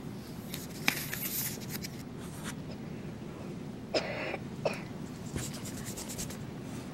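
A single cough about four seconds in, over faint scratching of pencils writing on paper in a small, quiet room.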